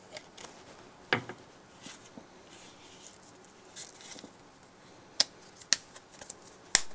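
Knife being worked in and out of a Kydex sheath: several sharp plastic clicks as the blade snaps into the sheath's retention, with light handling rustle between. The loudest clicks come about a second in and near the end.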